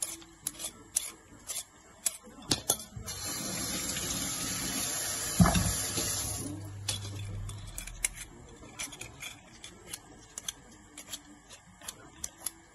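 Y-peeler scraping strips of skin off a potato and then a zucchini, in short irregular rasping strokes. About five and a half seconds in there is a sharp clatter as the peeler is set down in an aluminium steamer pan, and a steady hiss runs for about three seconds around it.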